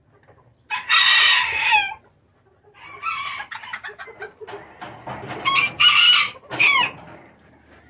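Several roosters crowing one after another, the loudest crows about a second in and about six seconds in.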